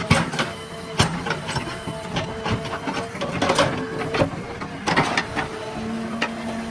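A heavy earth-moving machine working: its engine runs with a steady whine while irregular metallic clanks and knocks come every fraction of a second, with a louder cluster of knocks about three and a half seconds in and again near five seconds.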